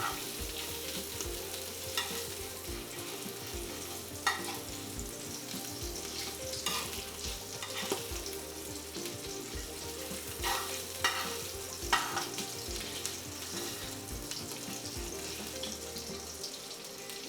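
Chicken fat sizzling steadily as it renders in a metal pot, with a utensil stirring and knocking against the pot now and then.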